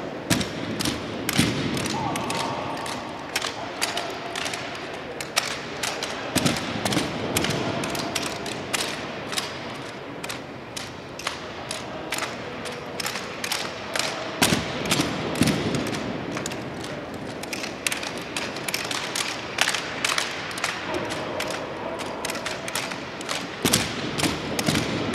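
M1903 Springfield rifles being handled in an exhibition drill: a quick, irregular run of sharp clacks and knocks, several a second, as the rifles are slapped, spun and grounded.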